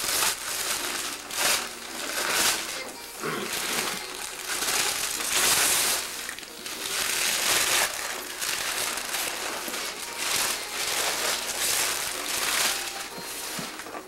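Wrapping paper being torn off a large gift box and crumpled, in a run of irregular ripping and rustling bursts.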